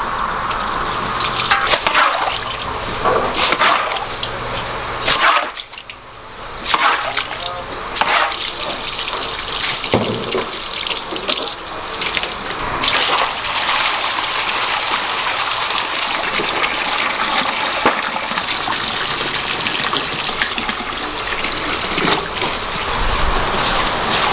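Running, splashing water with scattered knocks and clatter of things being handled.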